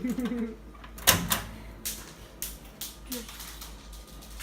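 A microwave door and keypad being handled: several sharp clicks and knocks, the loudest pair about a second in and single ones spread through the rest.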